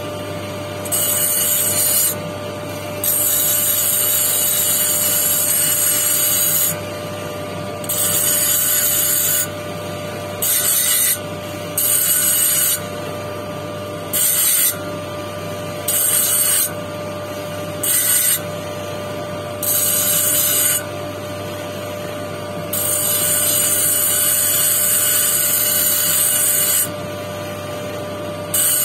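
Electric motor of a lapidary wheel running with a steady hum, while a quartz stone on a dop stick is pressed against the spinning disc again and again. Each contact gives a high grinding hiss, some brief, some held for several seconds, about ten in all.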